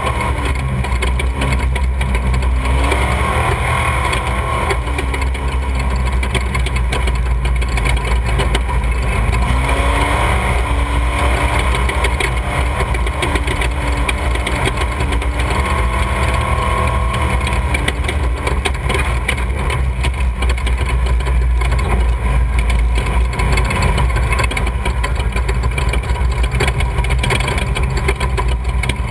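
Off-road race vehicle engine running loudly and steadily, its pitch rising and falling a few times.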